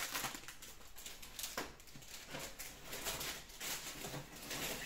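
Rustling, shuffling handling noises from packing things away, with a sharp click about one and a half seconds in.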